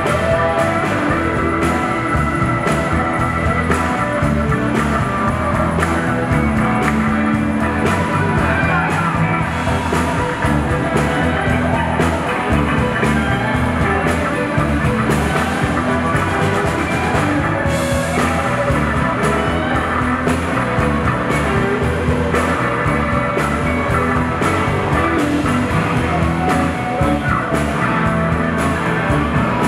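Live rock band playing a song on stage, with several electric guitars over drums and bass.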